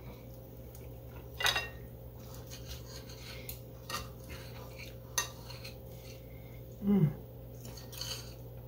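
Knife and fork clinking and scraping on a china plate while cutting roasted cabbage and corned beef, a few sharp clinks, the loudest about a second and a half in. A brief low murmur from a person comes about seven seconds in.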